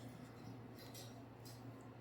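Quiet room tone: a steady low hum with two faint, brief scratchy clicks, about a second in and again shortly after.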